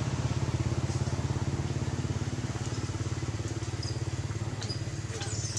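A small engine running steadily, a low hum with a rapid even pulse.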